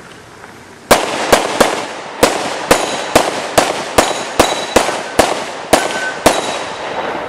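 Rapid pistol fire: about fourteen sharp shots over some five and a half seconds, in quick pairs and singles with short gaps between. Each shot has a brief echo. This is a shooter working through an IPSC stage after the start signal.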